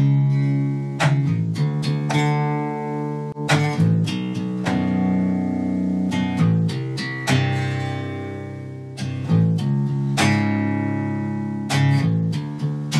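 Jackson electric bass guitar played fingerstyle with a clean tone: a riff of plucked notes jumping up an octave and stepping up a fret at a time, the notes left to ring into each other.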